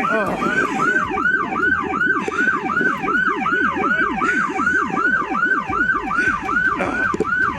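Police sirens in fast yelp mode, two at once: one rising and falling about three to four times a second, and a lower one cycling faster underneath.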